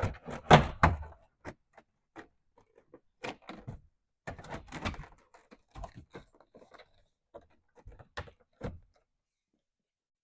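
Plastic interior door panel being handled against the truck's door, fitted onto its hooks: a string of irregular knocks, taps and scrapes, loudest in the first second and thinning out.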